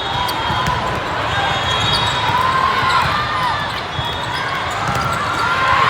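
Indoor volleyball play in a big hall: sneakers squeak on the court floor and balls thump and bounce, over a steady din of crowd chatter.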